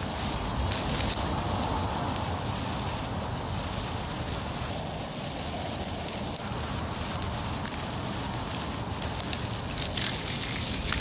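Garden hose spraying a thin jet of water onto grass and dry fallen leaves: a steady hiss with many small ticks as the drops land. The pressure is low, coming only from rain tanks about ten feet uphill.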